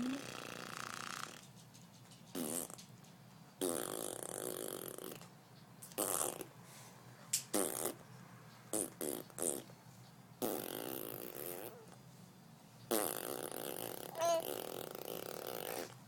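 A string of fart noises, about ten in all, some short blats and some longer drawn-out ones, with gaps between them. A brief high squeak comes near the end.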